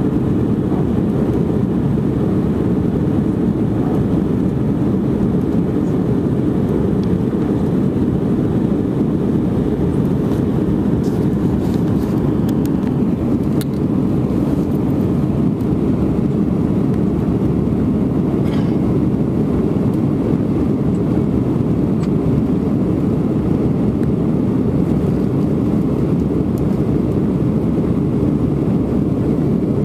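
Steady cabin noise inside an Airbus A319 in flight: the jet engines and airflow make an even, low rumble that holds the same level throughout, with a few faint ticks around the middle.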